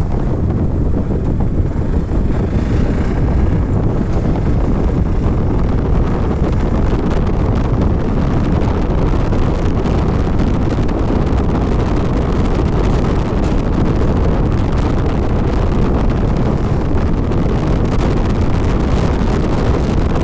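Loud, steady wind rumble on the microphone of a moving motorcycle, a Hero Xpulse 200, with road and engine noise under it.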